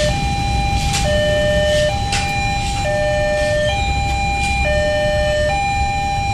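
Railway level-crossing warning alarm sounding a steady two-tone signal that alternates between a lower and a higher note about once a second, still going as the barrier arms lift after the train has passed. Road traffic idles underneath.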